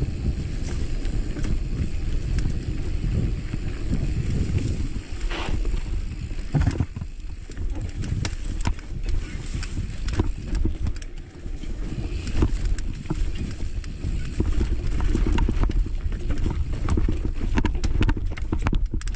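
Mountain bike rolling fast down a dirt and rock singletrack, picked up by a camera mounted on the bike or rider: a steady rumble of wind on the microphone and tyres on dirt, with frequent clicks and knocks from the bike rattling over rocks.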